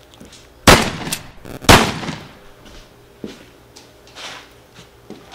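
Two loud, sharp bangs about a second apart, followed by a few light knocks.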